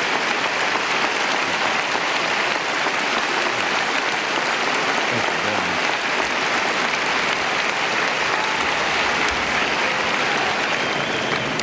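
A large audience applauding: dense, steady clapping that begins to fade at the very end.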